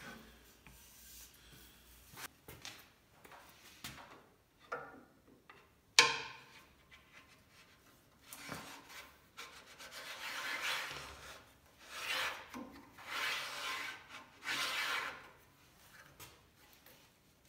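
A white oak runner slid back and forth in the miter slot of a bandsaw table, wood rubbing in four strokes in the later part, as the runner is test-fitted to the slot. A single sharp knock about six seconds in is the loudest sound.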